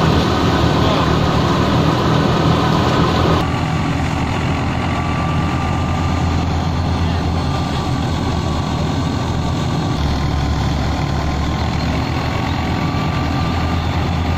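Wheat threshers running steadily: first a small belt-driven thresher, then, after an abrupt change about three seconds in, a tractor-driven thresher with the tractor's engine humming steadily under load.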